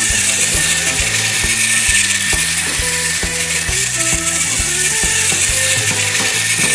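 Capsule Plarail wind-up toy train running on plastic track: a steady clockwork gear whir with a fast, even run of clicks, over background music.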